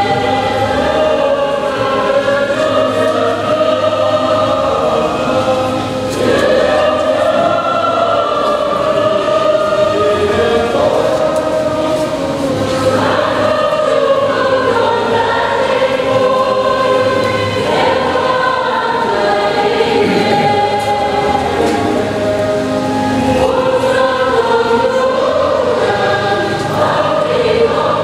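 A choir singing a hymn, steady and continuous.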